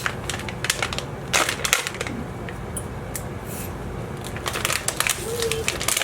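Plastic bag packaging crinkling and crackling in quick irregular clicks as it is handled and opened, with a quieter stretch in the middle before the crackling picks up again.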